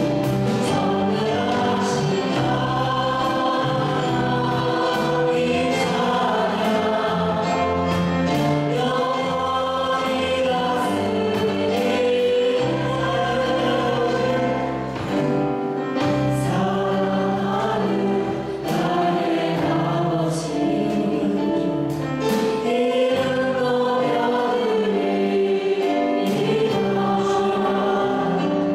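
Church praise team singing a worship song into microphones, a woman's voice leading, over accompaniment with held low notes underneath.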